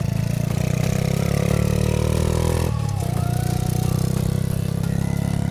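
A small engine running close by with a fast, even firing pulse. It speeds up briefly in the first half, then drops back to a steady run about two and a half seconds in.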